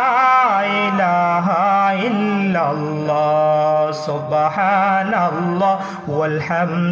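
A male voice chanting Islamic zikir in long, wavering melodic phrases into a microphone, over a steady low drone.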